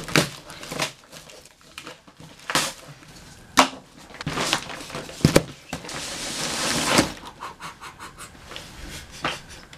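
A cardboard shipping box is handled and opened, with a run of sharp knocks, thuds and crackles of cardboard. About six seconds in comes a rushing rustle lasting about a second as the plastic-wrapped rug slides out of the box.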